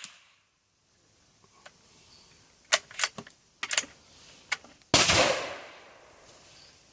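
CZ 452 .22 LR bolt-action rifle: a quick series of sharp metallic clicks about three seconds in as the bolt is worked to chamber a new round, then a single shot about five seconds in whose report fades away over about a second.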